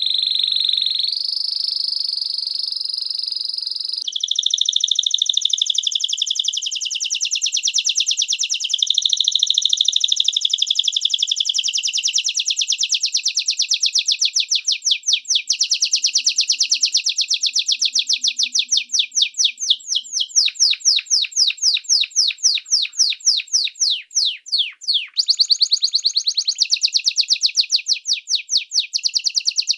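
Domestic canary singing. It holds one steady high whistle for about four seconds, then goes into long fast trills and rolls of rapidly repeated notes. Later in the song the notes come as separate strokes, with a quick falling sweep about 25 seconds in.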